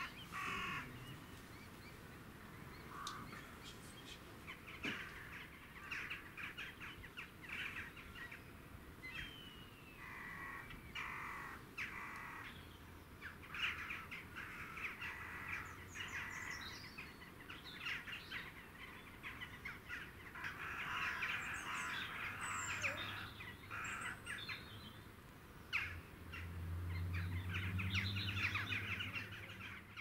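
A flock of crows cawing over and over, harsh calls overlapping one another, with a few thin high bird whistles in the middle. A low rumble swells in the last few seconds.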